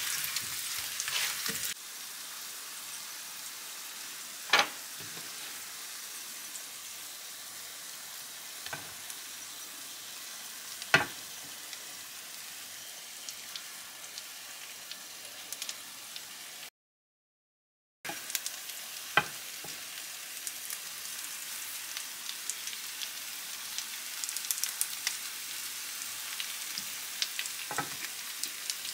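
Sliced potatoes frying in oil in a nonstick pan, sizzling steadily, with a silicone spatula stirring and scraping through them and two sharp knocks of the utensil against the pan. In the second half, minced meat and vegetables sizzle as they are tipped over the potatoes and stirred in.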